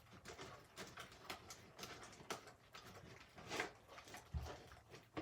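Faint, irregular sticky clicks and squelches of thick glue slime being kneaded and pressed by hand, with glycerin just mixed in to loosen it.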